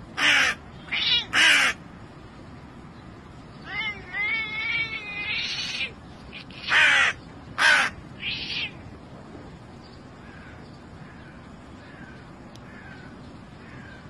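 Hooded crow cawing harshly: three caws at the start, a longer wavering, warbling call about four seconds in, then two more loud caws and a shorter one around seven to eight seconds, followed by a few faint short calls.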